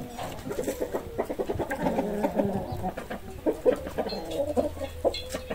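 Chickens clucking, a run of short, quick clucks one after another.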